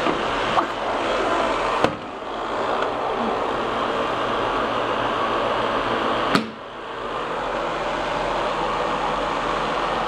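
Canister vacuum cleaner running steadily. Two sharp knocks, about two seconds in and again after six seconds, are each followed by a brief dip in the motor noise.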